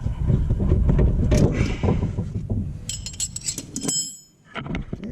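Hand tools working on a car's suspension: low knocks and handling noise, then a cluster of sharp metal clinks with a brief ringing about three to four seconds in.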